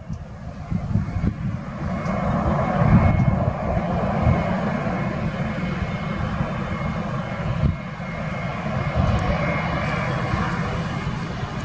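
Jet engines of an IndiGo Airbus A320-family airliner on final approach with gear down: a steady rumble and rush with a faint high whine, growing louder over the first couple of seconds as it nears.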